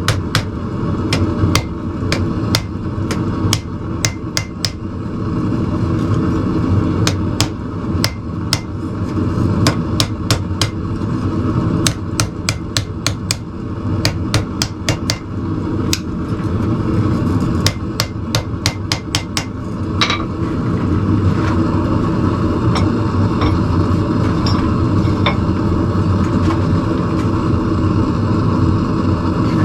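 Hand hammer blows on steel being forged into blacksmith tongs, in runs of quick strikes, over a steady rushing noise. After about twenty seconds the hammering stops, leaving the rushing noise with a few faint light taps.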